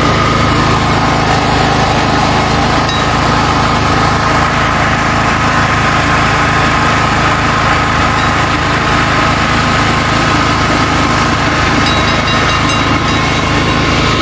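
A steady engine drone with a constant hum, under a dense wash of noise.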